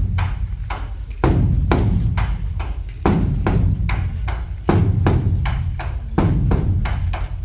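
Large Korean Buddhist temple drum (beopgo) beaten with sticks in a quick, uneven rhythm: deep booming strokes about every second and a half, with lighter, sharper strokes between them.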